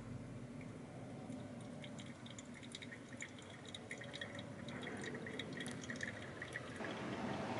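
Hot water poured in a thin stream from a kettle onto coffee grounds in a paper pour-over filter, with many small pops and drips as the wet grounds bubble and foam. The sound gets louder near the end.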